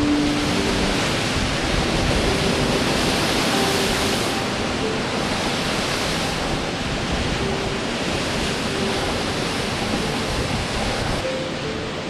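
Storm surf breaking over a rocky shore: a loud, steady rush of waves and spray. Faint background music plays underneath, and the hiss eases slightly near the end.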